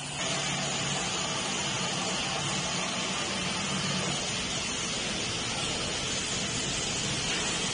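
Steady whirring machine noise with a faint low hum from an FW2030ATC CNC router with a linear automatic tool changer, running its automatic tool-sensor cycle that measures each tool's length in turn.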